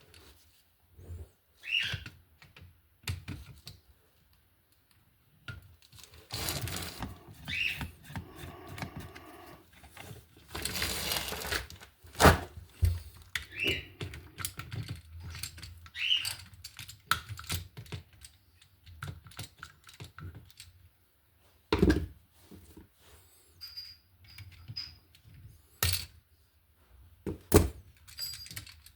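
Irregular clicks, knocks and scrapes of hand tools and wires being handled at a wall outlet, with two longer rasping stretches and a few louder knocks.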